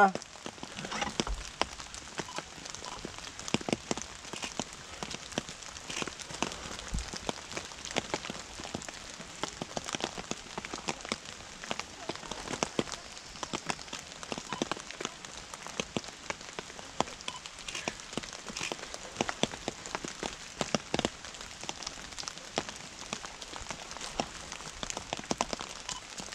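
Steady rain falling, with single drops ticking sharply and irregularly on a surface close to the microphone.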